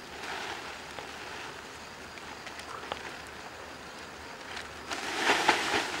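A plastic sack rustling and crackling against leafy branches as a bee swarm is gathered into it, with a louder burst of crackling about five seconds in.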